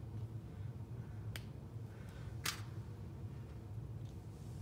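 Two small sharp clicks about a second apart as small tools and plastic model-kit parts are handled, over a steady low hum.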